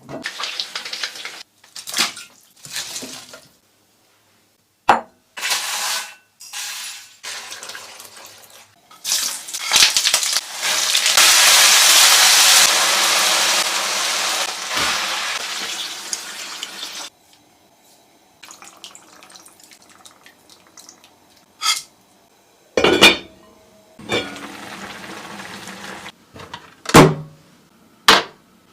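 Kitchen work sounds: pans, dishes and utensils knocking and clinking in a run of short, separate clips, with a loud steady hiss lasting several seconds around the middle.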